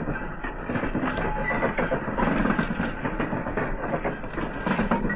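Model railway vans rolling along the track, with a dense run of small irregular clicks and rattles from the wheels running over the rail joints and pointwork.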